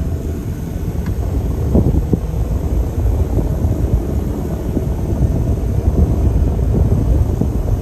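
A vehicle on the move: a steady low rumble of engine and road noise.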